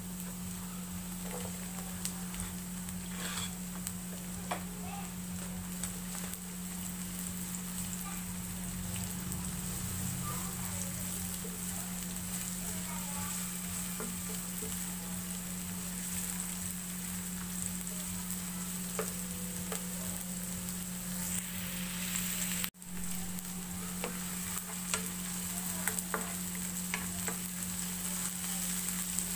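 Minced garlic and sliced onion sizzling steadily in oil in a non-stick frying pan, with a spatula stirring and scraping, giving scattered light clicks. A steady low hum runs underneath.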